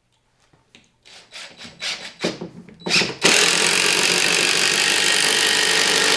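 Power drill driving a 3-inch deck screw through a hardened steel strike plate into the door-frame stud. First come a few short clicks and brief bursts as the screw is started, then about three seconds in the drill runs steadily as the screw goes home.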